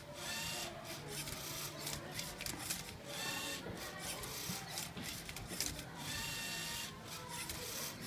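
LEGO Mindstorms servo motors whirring in repeated short bursts as a Rubik's-cube-solving robot flips and turns the cube.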